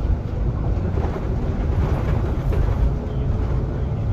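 Inside a Solaris Urbino 18 IV articulated city bus on the move: a steady low rumble of the running driveline and road noise, with a few faint rattles.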